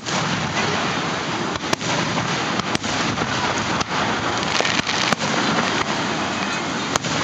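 Aerial fireworks display: several sharp bangs from bursting shells at irregular intervals, over a dense, steady hiss.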